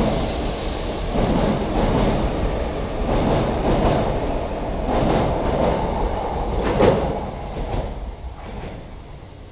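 E4 series double-decker Shinkansen departing along the platform: a steady rumble of wheels on rail with a few sharp clacks, the loudest about two-thirds through, then fading as the train draws away.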